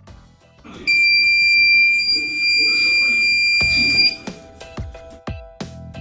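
A 3-volt active buzzer on a homemade door alarm sounds one continuous high-pitched beep. It starts about a second in and cuts off suddenly after about three seconds, over background music.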